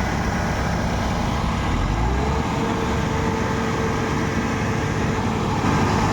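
Kubota DC-70 Plus combine harvester's diesel engine running steadily, with a whine that rises in pitch about two seconds in and then holds level.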